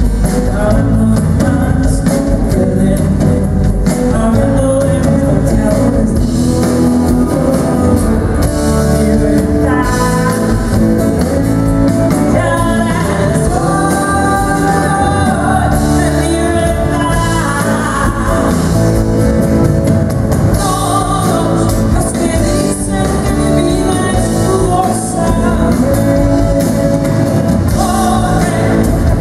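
Live band playing a pop-rock song, with keyboards and electric guitar, and a woman singing lead into a microphone.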